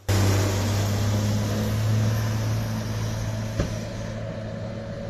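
A motor vehicle engine running steadily, a low hum under a rushing noise, slowly fading, with a single click about three and a half seconds in.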